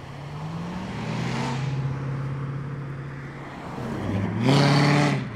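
Cars driving off past the microphone: a Mustang convertible's engine pulls away in the first second or two, its pitch rising. About four seconds in a C5 Corvette's V8 passes close under acceleration, the loudest sound, dropping away sharply just before the end.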